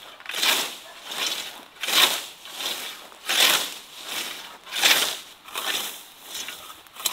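Hand scythe swishing through grass in steady mowing strokes: a loud swish about every one and a half seconds, with a softer one between each.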